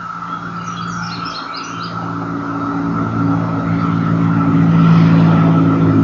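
Chorus of 17-year periodical cicadas (Magicicada): a steady, unbroken high drone. A bird gives a few quick chirps about a second in, and a motor vehicle's engine grows louder from about two seconds in, becoming the loudest sound near the end.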